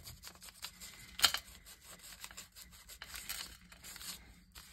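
A sheet of tea-dyed photocopy paper being creased, folded and rubbed flat by hand, a run of short rustles and crinkles with one sharp crackle about a second in.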